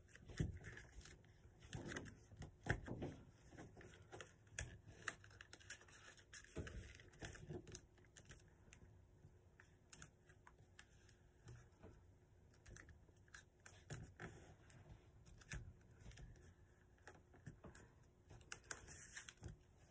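Faint, irregular rustling, crinkling and small clicks of a sheet of paper being folded and creased by hand.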